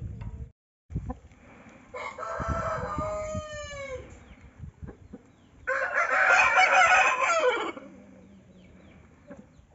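Rooster crowing twice: one crow about two seconds in and a louder one about six seconds in, each ending in a drawn-out falling note.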